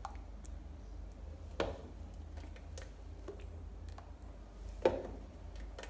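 Ladle ladling thick blended vegetable soup into a glazed clay bowl, heard mostly as a few light clicks and knocks of the ladle on the bowl's rim. Sharper knocks come about one and a half seconds in and again near the end.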